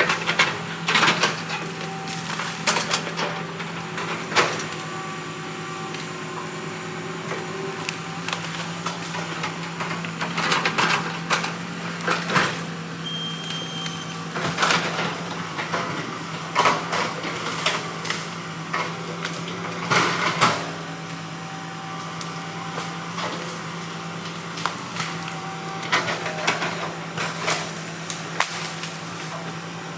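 Heavy machine's engine running steadily, with irregular loud knocks and clatters, strongest about a second in, near the middle and around twenty seconds in.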